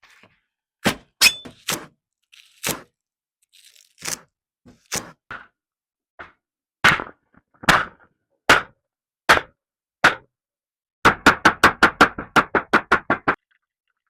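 Sharp knocks or blows struck one at a time at uneven intervals, then a fast run of about a dozen quick blows near the end.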